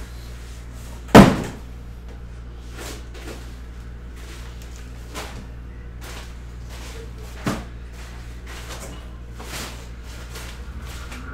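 A sharp knock about a second in, the loudest sound, then a lighter knock a few seconds before the end and some faint clunks, over a steady low electrical hum.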